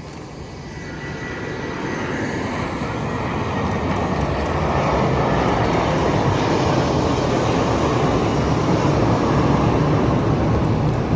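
Jet engines of a Virgin Atlantic Airbus A330-300 airliner approaching, a rushing noise that grows steadily louder over about five seconds and then holds loud and steady, with a faint high whine about a second in.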